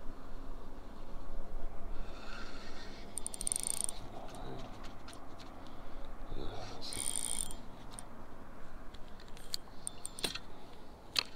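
Spinning reel being cranked in two short whirring bursts a few seconds apart, with a couple of sharp clicks near the end, over low wind rumble on the microphone.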